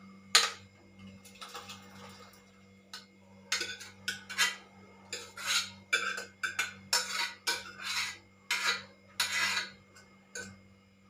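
Metal cookware clanking and scraping: a loud clank about half a second in, then short scrapes and clinks, roughly two a second, as boiled cabbage is scraped out of a metal pot into a pot of dal.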